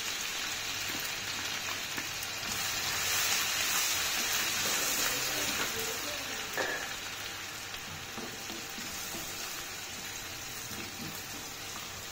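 Chopped garlic and ginger sizzling in hot oil in a kadai: a steady frying hiss that swells for a few seconds, then eases off. One light knock about six and a half seconds in.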